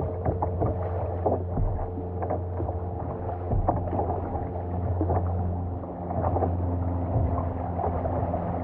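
Double-bladed kayak paddle strokes dipping and splashing in the sea, with water washing against the kayak's hull, over a steady low hum.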